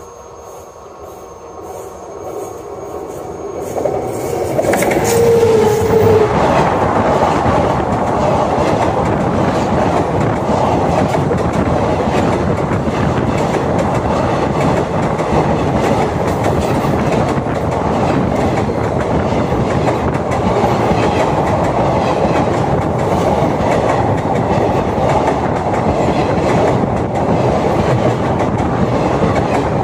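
A train coming up and running directly over a camera lying between the rails. A rising rumble gives way, about five seconds in, to a loud, steady clatter of wheels and coaches passing overhead, with a brief tone as it arrives.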